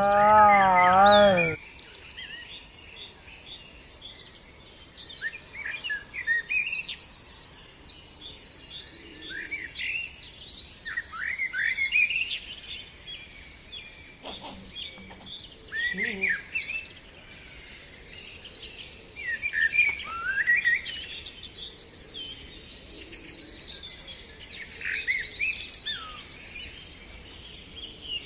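Small birds chirping and trilling in many short calls. It opens with the tail of a loud human cry whose pitch wavers up and down, which stops about a second and a half in.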